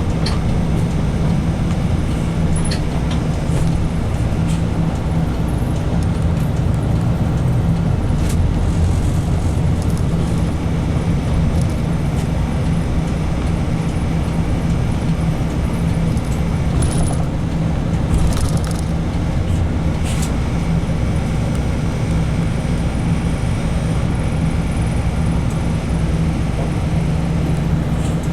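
Diesel engine and road noise of a route bus, heard inside the cabin from just behind the driver: a steady low drone, with a few faint rattles and clicks from the bus interior.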